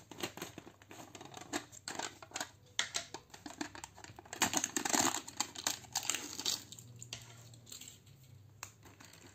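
White plastic screw cap twisted off a plastic snack jar with a few clicks and rubs, then the jar's sealed liner crackled and torn open. The tearing is loudest about four and a half to five seconds in, then it quietens to light handling noise.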